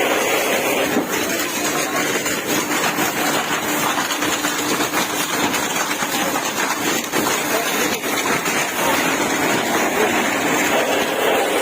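A vehicle engine running steadily under a dense, even background din.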